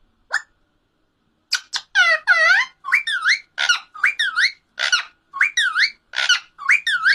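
A pet bird calling: one short call, then a long run of repeated squeaky calls, about two a second, each dipping down and rising back up in pitch.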